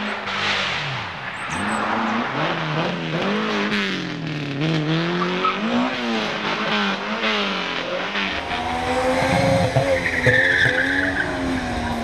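Rally car engine revving hard, its pitch rising and falling repeatedly through gear changes and lifts as it is driven at speed through a bend, with tyres squealing near the end.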